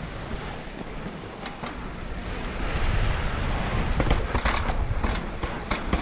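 Mountain bike with wide enduro tyres rolling fast over a tiled and concrete path, the tyres rumbling and the bike rattling over the joints. The rumble grows louder as it speeds up, and a quick run of knocks and clatters comes in the second half as it hits bumps.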